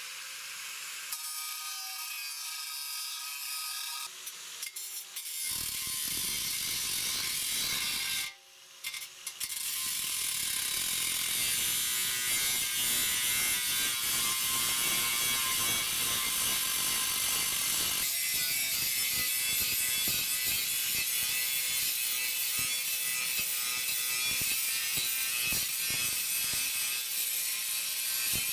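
Angle grinder with a thin cut-off disc cutting through the thin steel shell of a gas cylinder. At first it runs with a whine over a high hiss. From about five seconds in it turns to a rougher, fuller cutting noise, which drops away briefly around eight seconds in and then runs on steadily.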